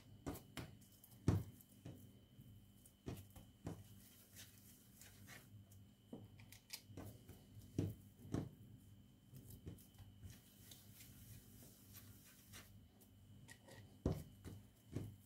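Hands rolling balls of yeast dough on a floured countertop: faint rubbing, with scattered soft taps and knocks as the dough is pressed and set down, a few louder ones about a second in, around eight seconds in and near the end.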